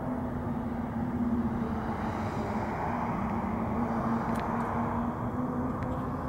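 Jet engines of an Airbus A320-232, its IAE V2500 turbofans, running steadily as the airliner sits on the runway before takeoff: a constant low hum over a broad rushing noise, swelling slightly partway through.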